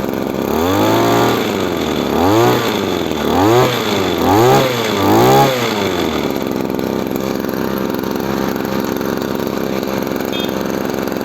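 Small engine driving a Taiwan-type sprayer pump, revved up and let back five times in quick succession, then running steadily. The engine itself runs well; the pump builds no pressure.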